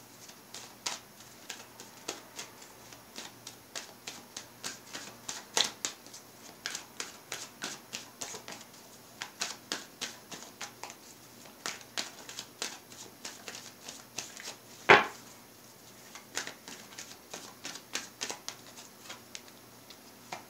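A deck of tarot cards being shuffled by hand: a long run of small irregular clicks and flicks of card edges, with one sharp tap about fifteen seconds in.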